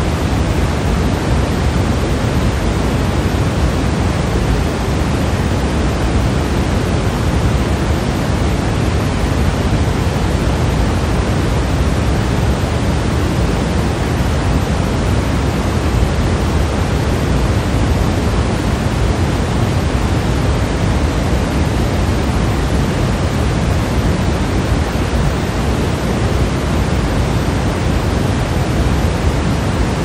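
Pink noise: a steady, even hiss at a constant level, heavier in the low end than in the highs.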